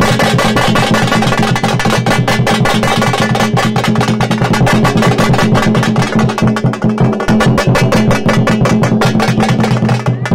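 A thappu (parai) drum ensemble plays a fast, dense, loud rhythm with sticks, struck without a break.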